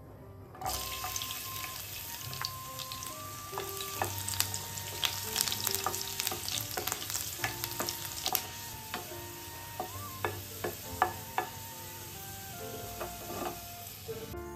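Food sizzling in hot oil in a pan. The sizzle starts suddenly about half a second in, and a utensil stirring and scraping in the pan makes frequent sharp clicks through the middle.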